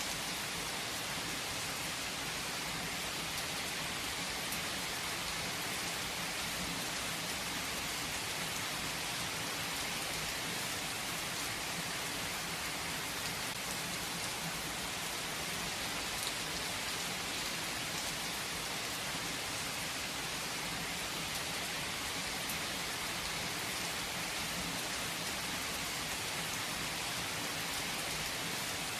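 Steady rain falling: an even hiss with occasional sharper drop ticks.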